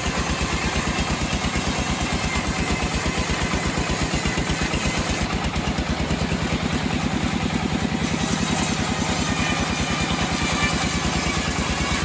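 Engine-driven homemade band sawmill running steadily while its blade rips lengthwise through a log, with a rapid, even engine beat under the noise of the cut.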